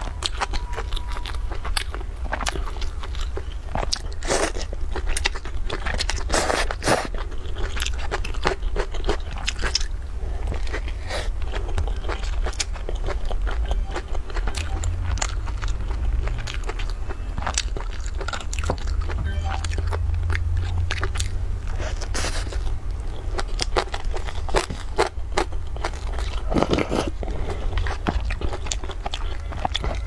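Close-miked eating: a mouth chewing soft steamed bun, with many short wet smacks and clicks over a steady low hum. Near the end there is a longer slurp of noodles from a cup of soup.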